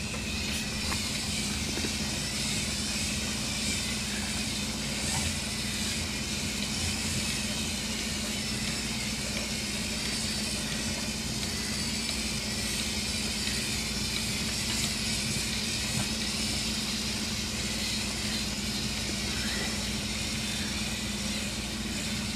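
Small wheeled robots' servo drive motors running steadily, a constant whir with a low hum under it, as a line of robots drives along in a robot train.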